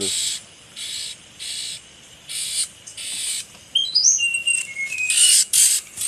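Short raspy chirps repeating about every 0.7 s, and about four seconds in a bird's clear whistled notes that rise in pitch and then step down.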